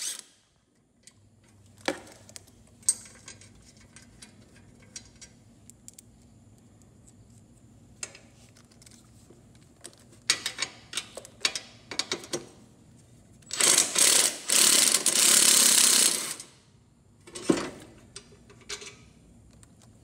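Cordless power driver with an 11 mm socket running for about two seconds, in two short runs two-thirds of the way in, spinning a panel nut off. Before and after it come scattered light metallic clicks and rattles of nuts and the steel panel being handled.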